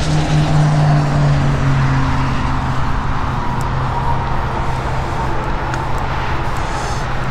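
Car engine running steadily with road and tyre noise, its low hum easing slowly lower.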